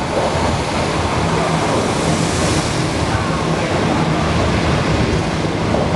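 Passenger coaches of a non-stop through train passing a station platform at speed: a loud, steady rush of wheel and rail noise with a low hum underneath.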